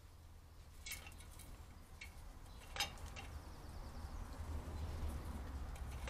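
A few sharp metallic clinks and taps as a starling lands on and clings to a Brome Squirrel Buster bird feeder. The loudest comes about three seconds in, and another comes right at the end.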